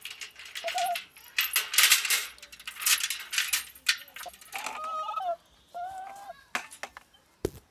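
Shoebill clattering its bill in a rapid, machine-gun-like rattle of clicks, densest in a burst of about two seconds near the start, then breaking into scattered knocks. This is the clatter shoebills give as a greeting.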